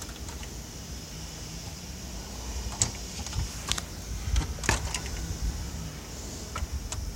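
A few scattered sharp clicks and knocks from handling the old TV's parts and tools while it is taken apart, over a low rumble of handling noise.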